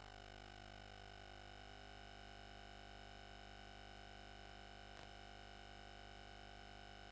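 Near silence: faint steady hum and hiss from VHS tape playback, with one faint click about five seconds in.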